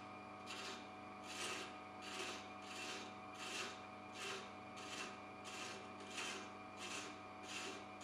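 Male thread chaser cutting threads into a spinning apricot-wood tenon on a wood lathe at low speed: a rasping scrape that comes back about every 0.7 seconds over the lathe's steady hum.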